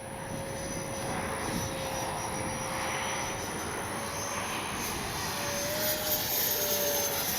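Electric ducted-fan whine of a 64 mm EDF RC F-86 Sabre jet in flight: a steady tone over a rushing noise, growing slowly louder, its pitch rising a little about six seconds in.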